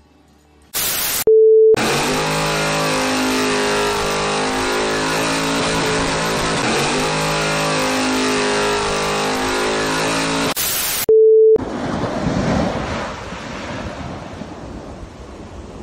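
A burst of static ends in a steady half-second beep, and the pair comes twice, about ten seconds apart, like a TV-glitch transition effect. Between them runs a loud, steady stretch of sound with held low tones that shift every so often. After the second beep comes a fainter rushing noise that slowly dies down.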